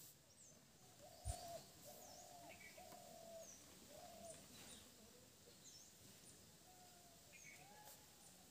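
Faint birdsong: one bird repeating short, even hooting notes, with thin high chirps of small birds over it. A single dull knock sounds about a second in.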